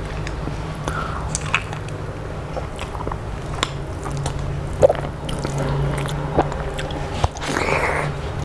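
Close-up eating sounds: chewing with scattered sharp crunchy clicks and wet squelches as a hand mixes watery rice. A steady low hum runs underneath.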